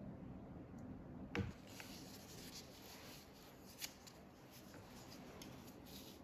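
Pen scratching on paper in many short, quick drawing strokes, after a single knock about a second in.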